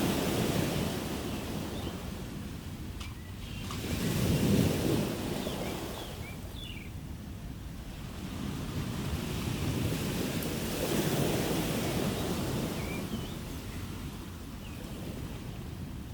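Ocean waves breaking and washing ashore, rising and falling in slow surges, the loudest about four seconds in and another building near the middle.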